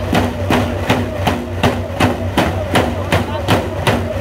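Dene hand game drummers beating hide frame drums together in a steady, driving rhythm, about two and a half beats a second, with voices singing along over the drumming.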